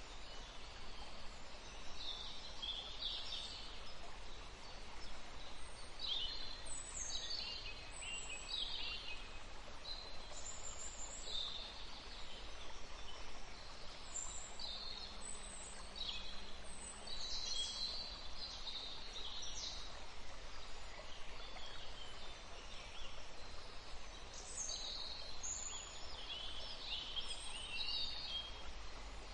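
Forest ambience: several birds giving short, high calls and chirps over a steady background hiss, with a lull in the calls about two-thirds of the way through.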